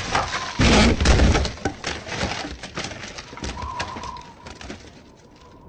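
Cartoon slapstick sound effects: a loud crash about half a second in, followed by a run of clattering knocks that thin out and fade away. A faint brief warbling tone comes about three and a half seconds in.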